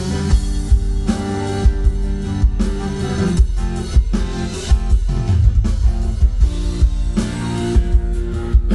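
Live band playing through stage PA speakers: electric guitar over a drum kit keeping a steady beat, with a strong bass.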